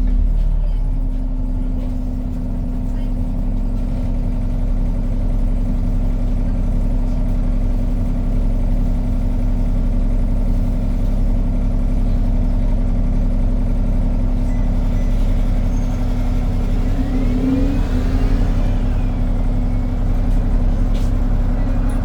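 Alexander Dennis Enviro 400 double-decker bus on a Trident chassis, its diesel engine and cooling fan running with a steady low rumble and whir.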